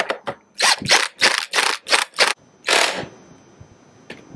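Hand ratchet driving a bolt at the seat-console hinge: a quick run of about seven ratcheting strokes, roughly three a second, stopping about three seconds in.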